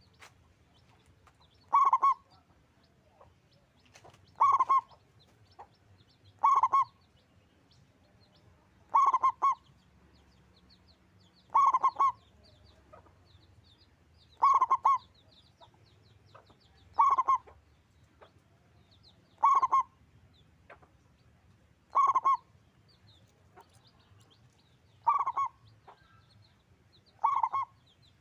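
Zebra dove (perkutut) cooing: a short, stuttering coo repeated about every two and a half seconds, eleven times in a row.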